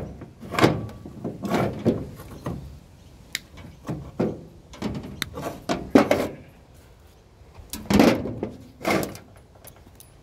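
Metal generator parts being handled and knocked about during a teardown: an irregular run of clunks and rattles, roughly one a second, dying away near the end.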